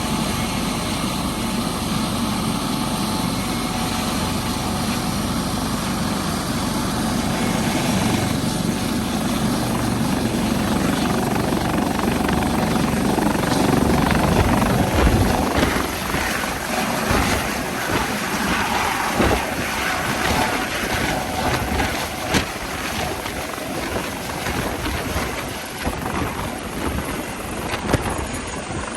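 Helicopter running up for takeoff: engine and rotor blades making a steady loud sound that builds toward the middle, then turns more uneven in the second half.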